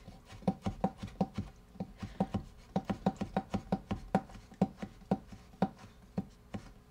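Chef's knife chopping roasted red peppers on a cutting board: a steady run of knocks of the blade on the board, about three a second, each ringing briefly.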